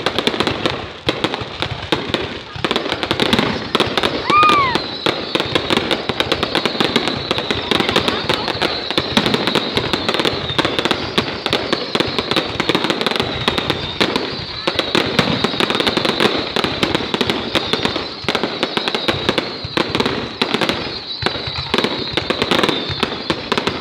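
Fireworks going off continuously: a dense run of cracks and pops with no break, and a short falling whistle about four seconds in.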